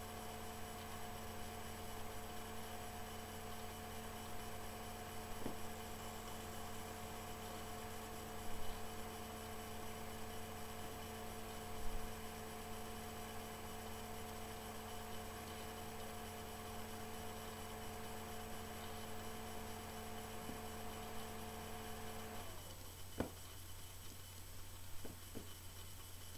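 Steady electrical mains hum with a few fainter steady tones above it, which drop away about 22 seconds in. A single faint click comes about five seconds in, and a few more near the end.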